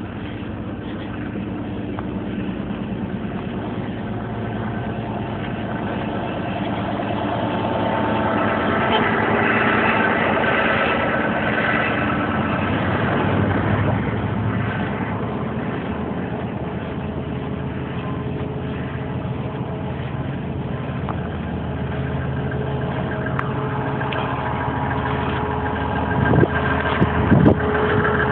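Motor vehicle engines running and idling in street traffic, a steady hum that grows louder for a while in the middle, with a few knocks near the end.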